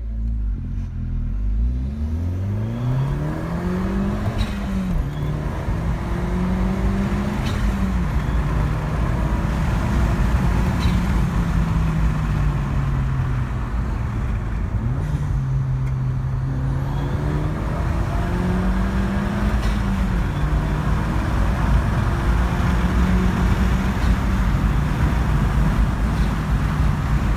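Mini Cooper's turbocharged four-cylinder engine, fitted with an Alta diverter valve spring, pulling through the gears of its manual gearbox: the engine note climbs and drops back at each upshift several times, with spells of steady cruising between, over road noise.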